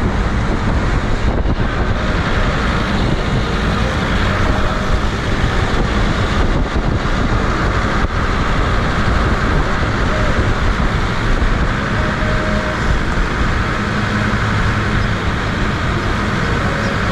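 Steady engine, tyre and wind noise heard from inside an open-sided off-road jeep driving along a town street.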